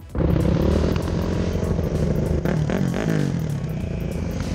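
Dirt bike engine running steadily, with a brief shift in pitch a little past the middle.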